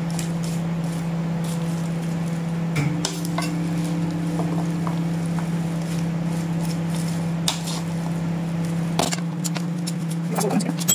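A metal spoon and a ceramic spoon clinking against a ceramic bowl as a salad is tossed, with scattered light clicks, over a steady low hum.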